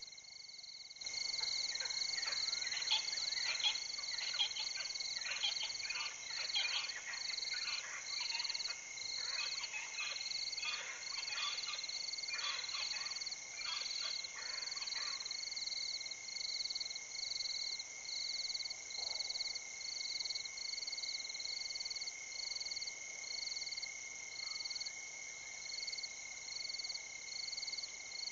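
Night chorus of frogs and insects: a steady high trill and a high chirp repeating about once a second. For the first fifteen seconds or so, a dense clatter of frog calls runs over them and then drops away.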